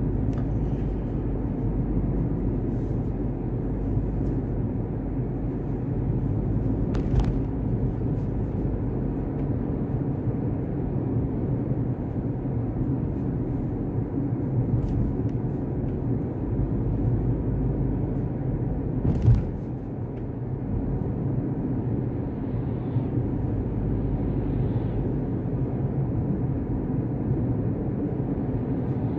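Steady car engine and road noise heard from inside the cabin of a moving car, with a faint low hum. Two short knocks, one about seven seconds in and a louder one a little before twenty seconds in.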